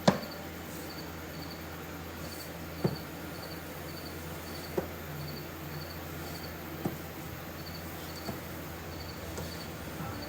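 Sharp knocks and taps from laying vinyl plank flooring: a loud one at the start, then four lighter ones spaced a second or two apart. Under them runs a steady low hum and a faint high chirp repeating about twice a second.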